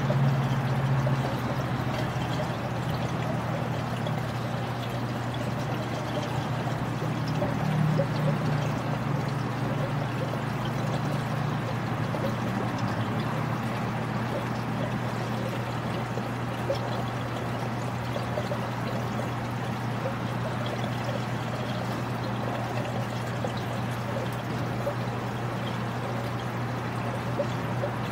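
Reef aquarium water trickling and splashing steadily, with a constant low hum underneath.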